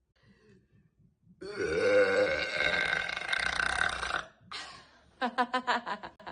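A woman's long, deep burp lasting nearly three seconds, followed a second later by a shorter burp that breaks into a quick run of pulses.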